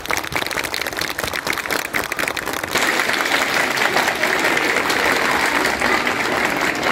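A crowd applauding. The dense clapping thins about three seconds in, giving way to steadier crowd noise.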